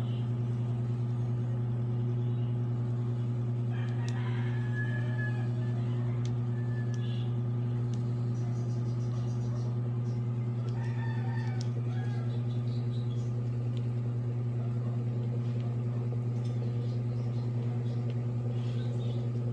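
A steady low hum, with two brief fainter sounds about four and eleven seconds in.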